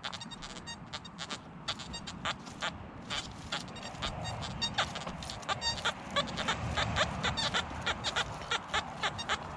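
XP Deus metal detector giving a rapid run of short beeps as the coil sweeps over ground littered with iron nails. The beeps come several a second and grow busier about four seconds in.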